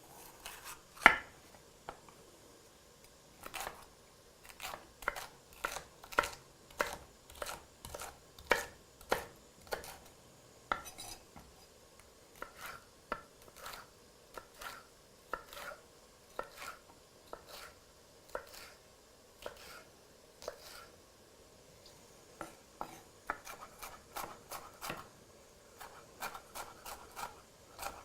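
Chef's knife chopping a seeded poblano pepper on a cutting board: a series of sharp knocks, about one to two a second, pausing briefly about three quarters of the way through, then faster strikes near the end.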